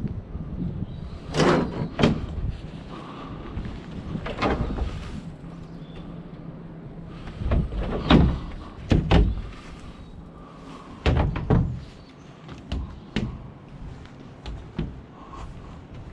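About ten irregular knocks and thumps, spaced unevenly, over a low background rumble.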